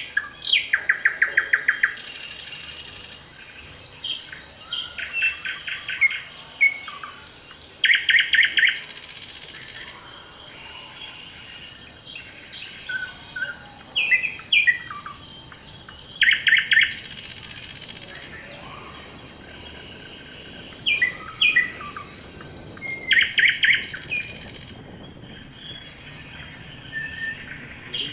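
Forest birds singing at dawn. A fast trill of rapid notes repeats every few seconds, with scattered sharp chirps and slurred whistles between. Several times a harsh, hissing call about a second long follows close after a trill.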